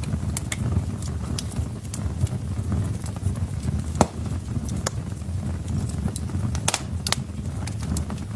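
Wood fire burning in a fireplace: a steady low rumble of flames with irregular sharp crackles and pops from the logs, the loudest pop about four seconds in.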